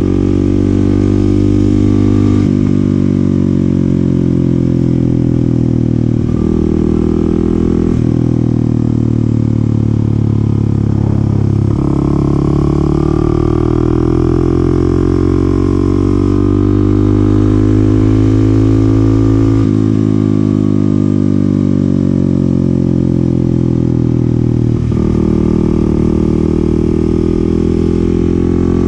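2022 Kawasaki KLX300SM's single-cylinder four-stroke engine running under way. Its pitch glides up and down with the throttle through the bends and jumps abruptly several times.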